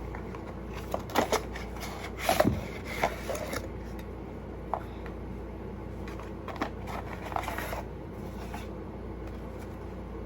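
Clicks, taps and rustles of a perfume package being opened and handled, busiest in the first few seconds and again a little past the middle, over a steady background hum.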